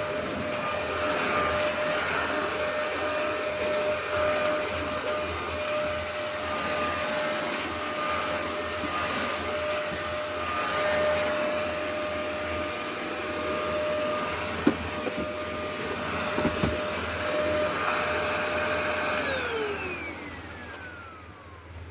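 Vacuum cleaner motor running with a steady whine, a couple of light knocks partway through; near the end it is switched off and the whine falls in pitch as the motor spins down.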